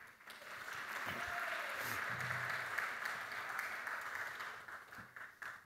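Audience applauding: a steady spread of clapping that thins to a few last single claps near the end and stops.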